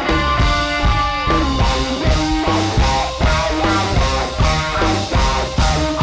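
Live band playing a guitar-led song: electric guitar over bass and drum kit with a steady beat.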